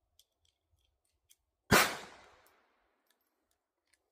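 A single shot from a Walther P22Q .22 LR pistol a little under two seconds in, fading over about a second, with a few faint clicks before it.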